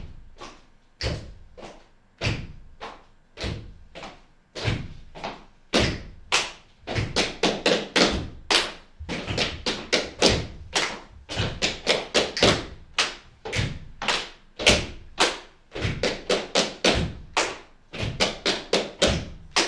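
A run of sharp thuds and knocks, about one a second at first, then coming faster from about six seconds in, several a second.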